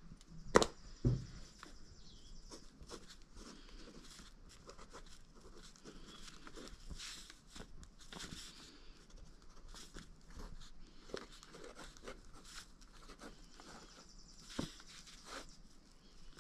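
Ballpoint pen writing on a sheet of paper over a wooden table: faint, short scratching strokes, with two sharp clicks about half a second and a second in.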